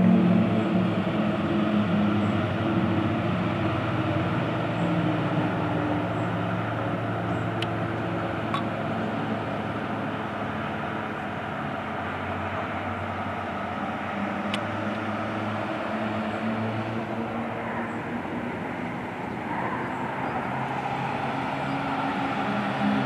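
Distant drone of a formation of Pilatus PC-7 turboprop trainers, its low hum shifting slowly in pitch, fading a little in the middle and swelling again near the end.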